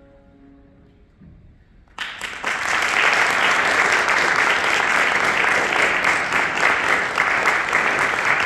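The last held note of a brass instrument dies away, and after about a second of quiet an audience breaks into applause about two seconds in. The clapping is steady and continues.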